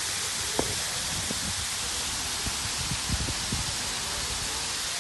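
Spray fountain nozzles misting water over a pool: a steady high hiss of spraying water. A few short low thumps come through about half a second in and around three seconds in.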